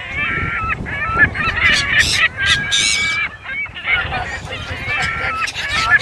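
A flock of waterbirds, gulls among them, calling over one another while being hand-fed: many overlapping harsh calls, some held briefly and some wavering, with a low wind rumble on the microphone.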